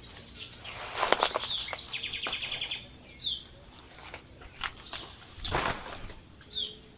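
Tropical forest ambience: birds calling, with a short falling chirp repeated every second or two and a brief rapid trill about two seconds in, over a steady high insect drone. Two louder rustles, about one second in and again about five and a half seconds in, as of movement through dry vegetation.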